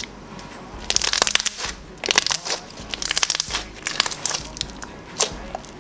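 Glossy slime topped with foam pieces, squeezed and pressed by hand, giving bursts of crackling clicks and pops from about a second in, then scattered single clicks near the end.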